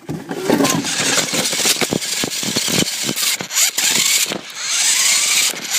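Small RC car driving, its motor whine rising and falling under a steady rough noise, with frequent knocks as it bumps over the ground.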